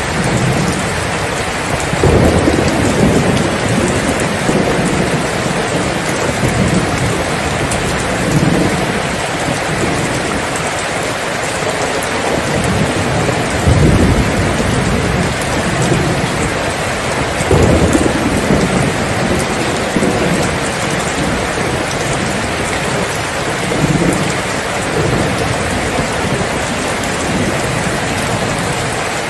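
Steady rain falling, with low rolls of thunder rumbling in about five times, each swelling and fading over a second or two.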